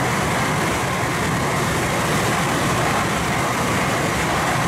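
Tokaido Shinkansen train passing through the station at speed without stopping: a loud, steady rush of wind and rolling noise.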